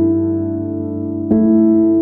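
Background music: sustained electric piano chords, with a new chord struck about a second and a half in.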